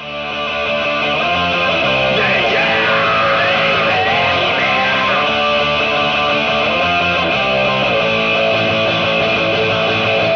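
Rock song intro played on guitar, without vocals, starting abruptly and holding a steady, full sound, with a few sliding notes about two to three seconds in.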